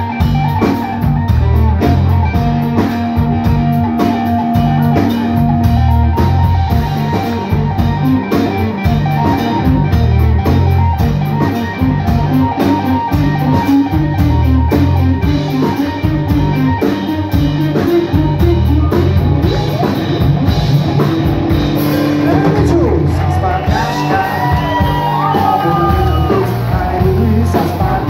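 Live rock band playing: a semi-hollow electric guitar leads over a drum kit keeping a steady beat. A singing voice comes in over the band in the last few seconds.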